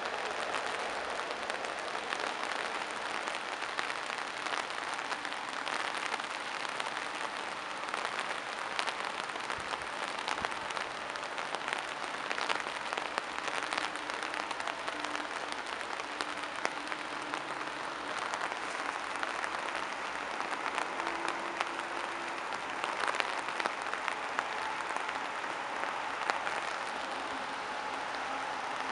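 Steady rain pattering on foliage and the ground, a dense, even crackle of many small drops.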